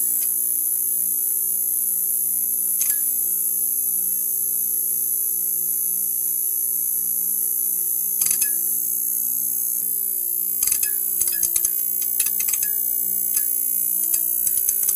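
Neon sign buzzing: a steady electrical hum under a high hiss, broken by sharp crackling ticks now and then, with a quick run of crackles about eleven seconds in.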